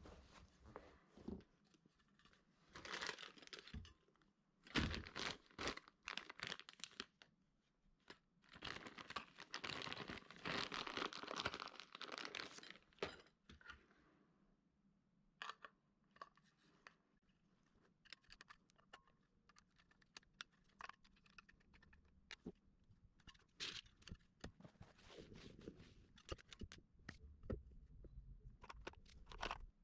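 Intermittent handling noises: rustling and crinkling in short bursts, with scattered clicks and light knocks and quiet gaps between them.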